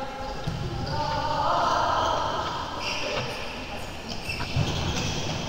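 Ball game in a sports hall: a ball bouncing on the court floor amid voices calling out, with a sharp thump about four and a half seconds in.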